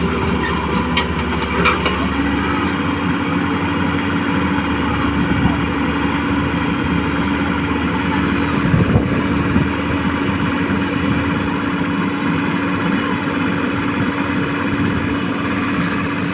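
Electric motors of radio-controlled construction models (an RC excavator and dump truck) running with a steady whine that steps up a little in pitch about two seconds in, with a few light knocks near the middle.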